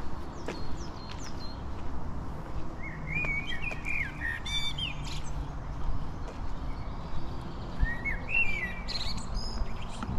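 Songbirds singing: two warbling phrases a few seconds apart, with thin high chirps near the start, over a steady low rumble.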